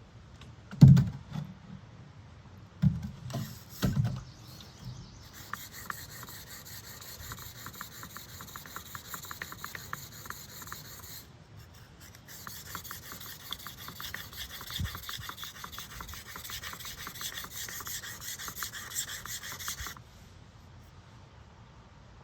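Steel blade being stroked back and forth on a sharpening stone: a continuous run of rapid scraping strokes with a brief pause partway through. A few knocks come first, the loudest about a second in.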